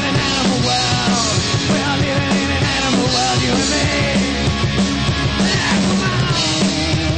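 Punk rock band playing live: electric guitars, bass and drums at a loud, steady, driving beat.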